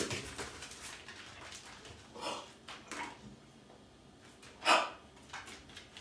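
A dog panting and breathing hard during play, with a few short huffs and one louder sharp huff almost five seconds in.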